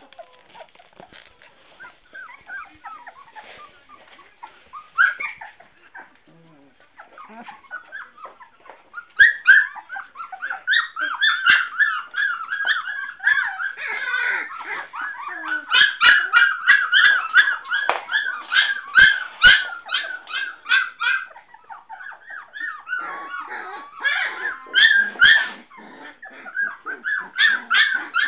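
Three-week-old Sheprador puppies (German Shepherd–Labrador crosses) whining and yelping in short, high, rapid cries. They are faint at first, then come thick and fast from about a third of the way in.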